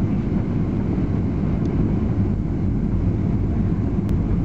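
Steady cabin noise of a jet airliner on final approach, heard from a window seat by the wing: a constant low rumble of engines and airflow. One faint tick about four seconds in.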